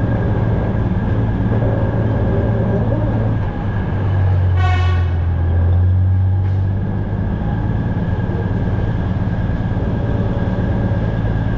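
Diesel railbus engine running steadily with a strong low hum, and one short horn blast about four and a half seconds in.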